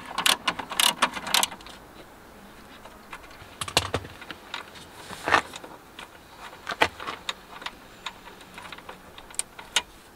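A ratchet wrench with a 12 mm socket clicks rapidly, about four clicks a second, for the first second and a half as a bolt on the 12 V battery's mounting is undone. After that come scattered metallic clinks and knocks of the tool and bolt.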